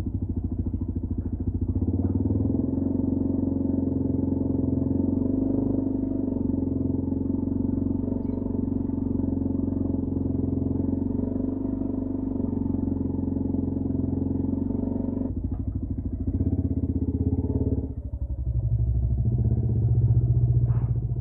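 Yamaha New Vixion's single-cylinder four-stroke engine running steadily. Its note breaks off briefly about 15 seconds in and changes again around 18 seconds.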